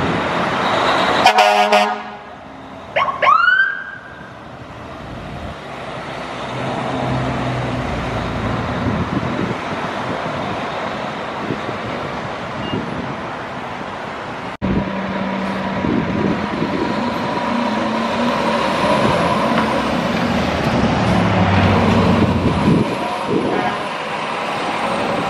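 Fire trucks on an emergency run: a loud air-horn blast about a second in, a siren briefly sweeping up in pitch just after, then diesel truck engines and street traffic with a siren faint in the background.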